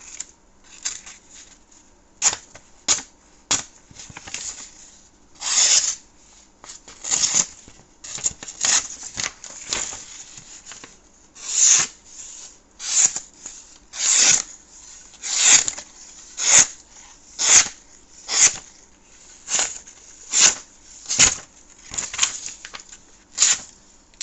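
Sheets of paper being sliced by a sharp folding pocket-knife blade: a series of quick papery swishes, roughly one a second and coming a little faster from about halfway through. The edge is cutting cleanly, a sign the blade is sharp.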